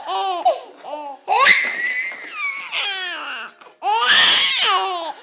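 Baby laughing in several bursts of high, falling squeals, set off by an adult's sneeze about a second and a half in.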